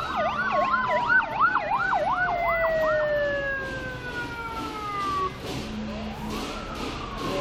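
Police motorcycle sirens: a fast warbling yelp for about three seconds, a long falling tone winding down, then rising wail sweeps near the end, over street traffic.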